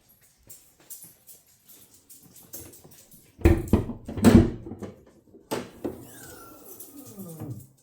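Handling noises: clicks, rustling and two heavy knocks. Near the end comes a short squeal that falls in pitch.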